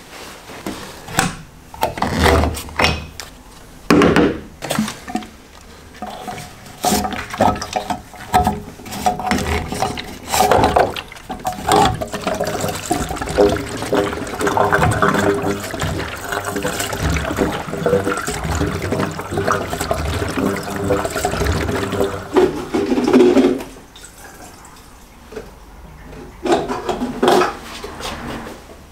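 Petrol glugging out of a plastic jerry can's spout into an empty car fuel tank, in a long steady pour through the middle. Knocks and clunks of the plastic cans being handled come before it and again near the end.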